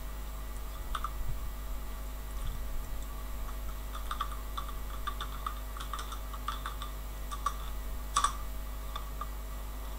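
Keys tapped on a computer keyboard in a scattered, irregular run of clicks, the loudest about eight seconds in, over a steady low hum.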